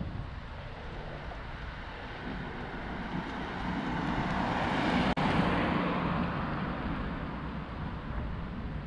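A motor vehicle passing by: a rushing noise that swells to a peak about five seconds in and then fades away, with a split-second dropout at the peak.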